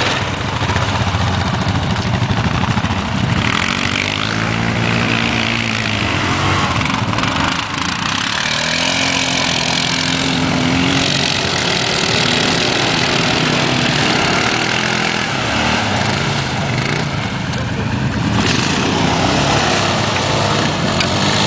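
ATV (quad bike) engines revving up and down over and over, working hard through deep mud.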